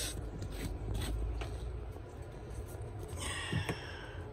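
Faint rustling and handling noise with a few soft clicks over a low hum.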